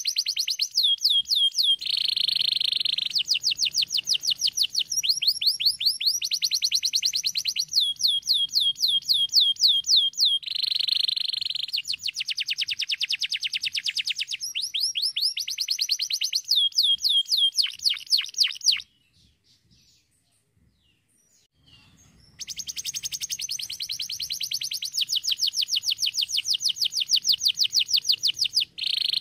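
Domestic canary singing: fast trills of rapidly repeated sweeping notes alternating with buzzy held notes. The song breaks off for about three seconds about two-thirds through, then resumes.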